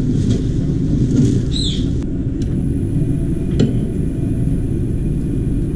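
Steady low rumble of a wood lathe, which starts turning the grey alder vase again about two and a half seconds in, bringing back a faint high motor whine. A short falling squeak comes just before it starts, and there is one light click later.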